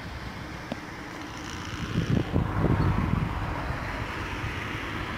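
Wind buffeting the microphone in irregular low gusts about two seconds in, over steady outdoor background noise.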